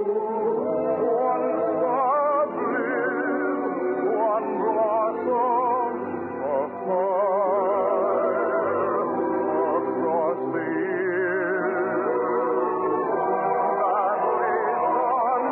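Operetta music from an old radio transcription: an orchestra playing sustained melodic lines with a wavering vibrato, with singing, the sound thin and muffled by the recording's narrow range.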